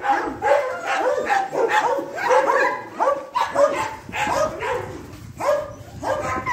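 A pack of dogs barking and yelping together, many voices overlapping in a continuous din.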